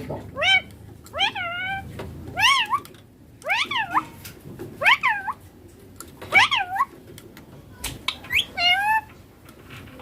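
Young Indian ringneck parakeet giving a series of short calls, about seven over ten seconds, each one rising then falling in pitch.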